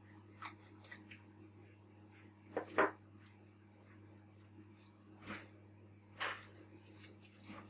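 Lens-cleaning tissue rubbed over a glass lens element in a series of short, scratchy rustles, the loudest about three seconds in, over a steady low hum.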